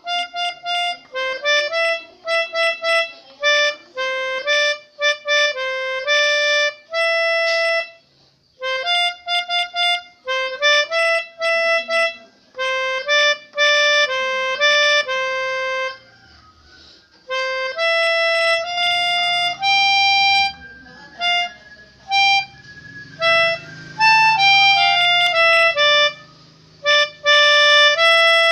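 Pianika (melodica) playing a melody in mostly short, separate notes with a few held ones, pausing briefly about eight seconds in and again around sixteen seconds in.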